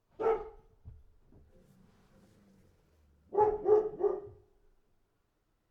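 A dog barking: a single bark, then after a pause of about three seconds a quick run of three barks.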